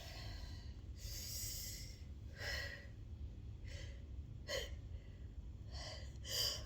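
A person's short, catching gasps, about six of them a second or so apart: the breath-catching between sneezes in a sneezing fit, building up to the next sneeze.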